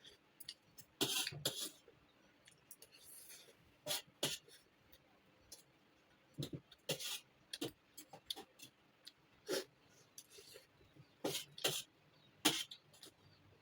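Close-miked mouth sounds of someone eating: irregular short chewing smacks and clicks, about a dozen scattered through, with no talking.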